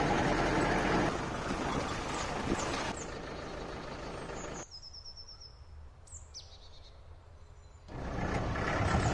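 Safari jeep running along a forest track, its noise loudest at first and easing a little after about three seconds. In the middle comes a quieter stretch where birds chirp, one with a quick run of repeated notes and one with a falling whistle. The jeep noise swells back near the end.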